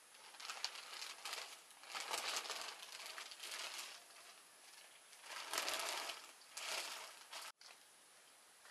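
Plastic sheeting crinkling and rustling in several irregular bursts as it is handled and pulled over a large barrel, stopping abruptly near the end.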